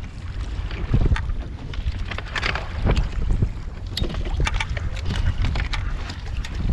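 Wind buffeting the microphone in a low rumble while choppy water splashes against a kayak hull, with scattered sharp knocks and clatters.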